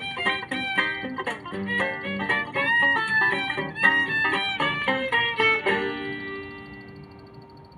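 Bluegrass instrumental ending: quick fiddle and picked string runs, then a final held chord that rings and fades out about six seconds in.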